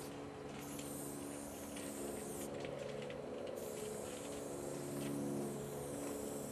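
Aerosol spray paint can hissing in long bursts, stopping briefly twice, over a steady low mechanical hum.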